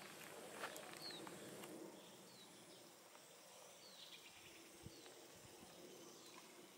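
Faint outdoor background hiss with a few short, falling bird chirps spaced a second or more apart.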